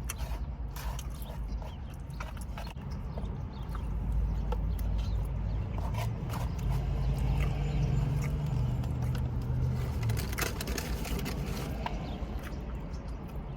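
Chewing and eating noises: a string of short mouth clicks and smacks over a steady low rumble.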